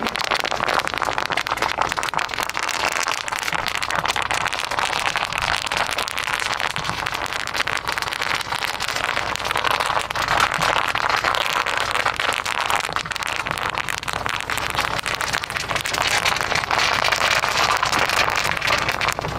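Pickup truck tyres rolling over a strip of bubble wrap, popping the bubbles in a dense, continuous crackle.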